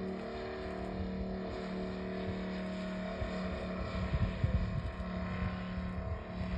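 The twin UMS 150cc radial engines of a giant RC DHC-4 Caribou droning steadily in flight, with a few low thumps about four seconds in.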